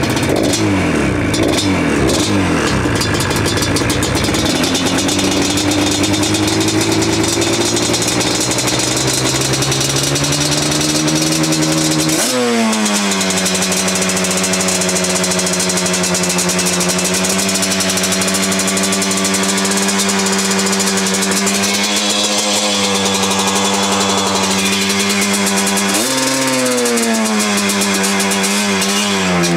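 2005 Yamaha Banshee's twin-cylinder two-stroke engine revving on its freshly rebuilt carbs, which the owner thinks are running real lean. A few throttle blips die away, then the revs creep slowly upward, jump up sharply about twelve seconds in and hold high and steady, rise again near the end and fall away.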